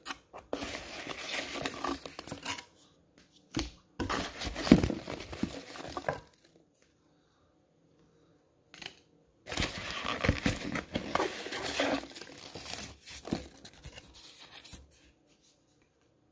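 Cardboard box and paper packaging being handled and pulled open, in three bursts with short quiet pauses between.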